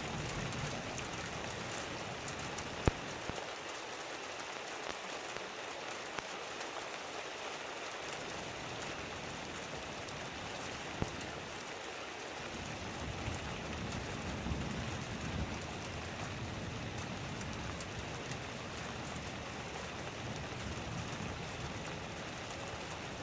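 Heavy rain falling steadily, with two sharp taps standing out about three and eleven seconds in.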